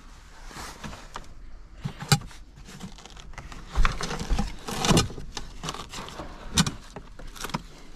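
Belongings being handled and packed: irregular knocks, clicks and light rustling, with a few sharper knocks spread through.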